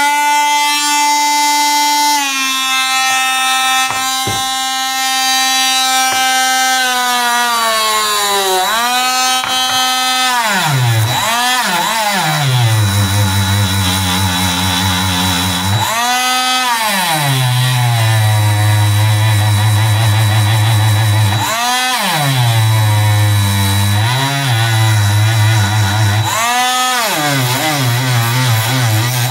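Cordless rotary tool with a small brush wheel scrubbing rust off a steel knife blade. The motor spins up with a steady whine at the start, and from about eight seconds in it drops in pitch each time the brush is pressed against the blade, rising again when eased off, several times over.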